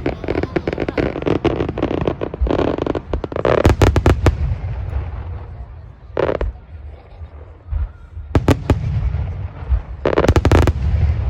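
Aerial fireworks bursting: a fast run of crackling pops, then several loud separate bangs, each trailing off in a low rumble.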